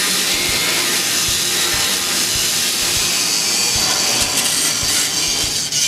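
Air-powered right-angle cut-off tool with an abrasive disc cutting through the steel sheet metal of a car's frame rail. It makes a steady, high-pitched grinding hiss.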